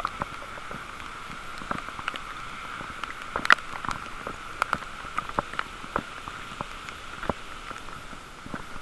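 Heavy rain shower: a steady hiss of rain with many irregular drops ticking sharply close by, the loudest hit about three and a half seconds in.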